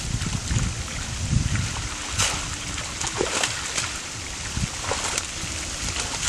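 Splashing and sloshing of water as a netful of fish thrashes at the surface, with several sharper splashes from about two seconds in.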